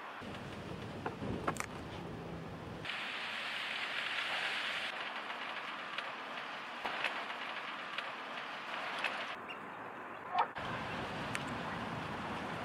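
Outdoor background noise that shifts abruptly several times as the shots change, with a low rumble in the first few seconds, a few faint clicks, and a short chirp about ten seconds in.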